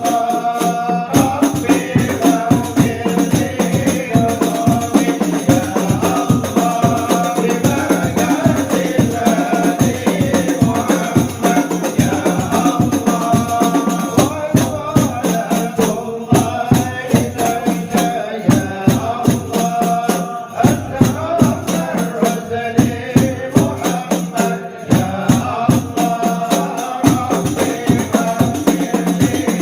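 Devotional group chanting with a dense, fast beat of rebana frame drums and jingles.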